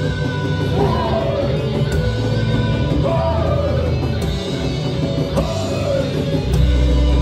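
Heavy metal band playing live: distorted electric guitars, bass guitar and drums, loud and dense.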